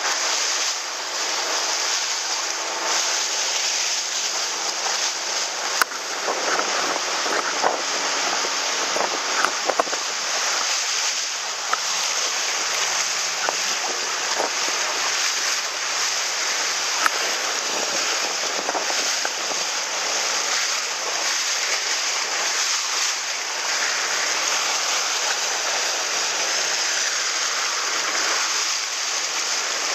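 Water rushing and splashing along the hull of a small boat under way through chop, with wind on the microphone and a faint steady engine hum underneath. A few sharp knocks and slaps come in the first half.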